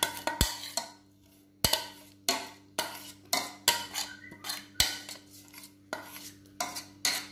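A spoon scraping and knocking against a pot, about two or three strikes a second, as thick béchamel sauce is spooned out into the mixture. Three heavier knocks stand out: one near the start, one at about a second and a half, and one at about five seconds.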